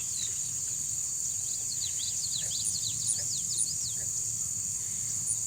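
A chorus of insects and frogs: a steady high-pitched insect drone, with clusters of quick sweeping chirps over it, and a few short high clicks in the second half.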